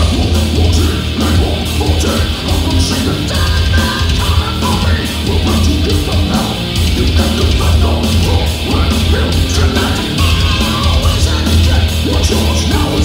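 Loud heavy-metal music with electric guitar.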